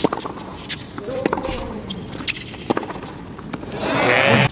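Tennis rally: sharp hits of racket on ball and ball bounces on the hard court, a second or so apart. Near the end, crowd cheering swells loudly and then cuts off suddenly.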